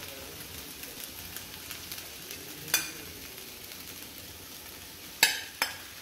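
A pan of vegetables and crushed Maggi noodles sizzling gently over the gas flame. A sharp clink a little under three seconds in and two louder clinks near the end, as a metal spoon knocks against the bowl and pan while mashed potato is tipped in.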